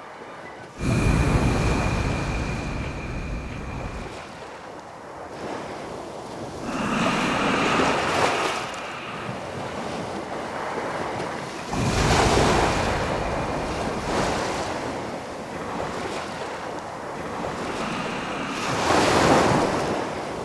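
Rushing surf-and-wind sound effect in a song's outro. It starts suddenly about a second in, then swells and ebbs in long waves roughly every six seconds.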